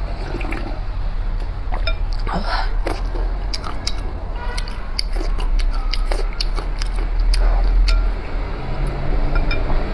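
Close-up slurping and sipping of spicy noodle-soup broth from a bowl held to the lips, with chewing and wet mouth clicks, over a steady low hum.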